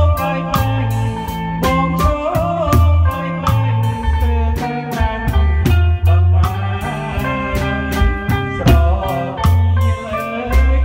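Live band playing a Khmer ramkbach dance song: drum kit keeping a steady cymbal beat of about three strokes a second, electric bass guitar, electric guitar and a wavering melody line.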